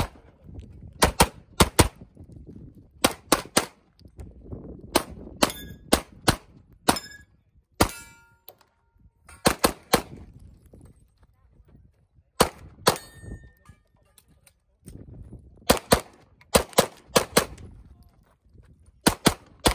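Atlas Athena pistol fired in rapid pairs and short strings of shots, with pauses between groups as the shooter moves between positions. A metallic ringing follows a few of the shots, from steel targets being hit.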